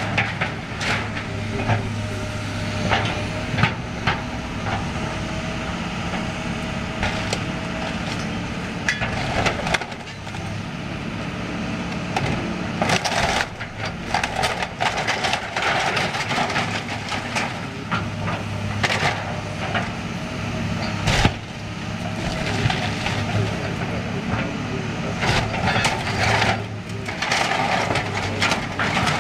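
Hydraulic excavator's diesel engine running steadily while its bucket tears into a building's metal roof and timber frame, with repeated cracks, crunches and knocks of breaking wood and sheet metal and one sharp crack about two-thirds of the way through.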